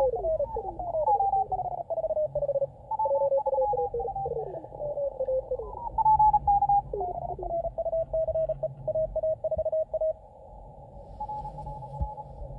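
Morse code (CW) signals from an Elecraft K2 transceiver's speaker as its VFO knob is tuned down the crowded 20 m CW band. Several stations' keyed tones sweep downward in pitch as the receiver tunes past them. After that one station's Morse keeps a steady pitch until about ten seconds in, and fainter keying follows.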